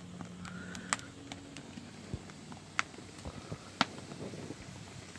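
A wood cooking fire crackling under a large pan of boiling beef tripe, with scattered sharp pops, the strongest about one second and about four seconds in.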